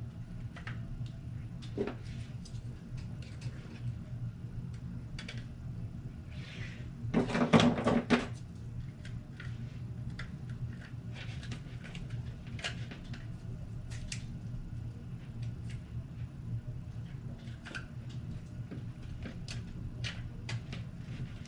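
Scattered light clicks and taps of small plastic parts and clamps being handled, with a louder rustling handling noise about seven seconds in, over a steady low hum.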